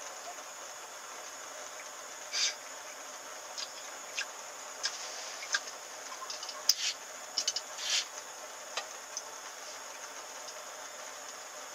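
Steady hiss, with a scattered run of small clicks and short rustles from about two to nine seconds in, the sharpest about two-thirds of the way through.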